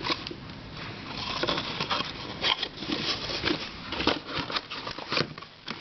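Plastic twisty puzzle being handled and turned: a run of quick, irregular plastic clicks and rattles.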